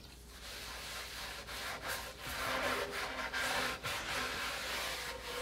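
Cloth rag wiping naphtha across a bare, sanded solid-mahogany tabletop: a run of soft, uneven rubbing strokes.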